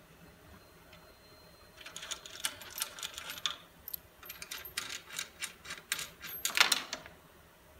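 Quick, irregular clicking from an exercise bike's resistance adjuster as a hand works it. The clicks start about two seconds in, pause briefly, then go on at about five a second, with the loudest click near the end.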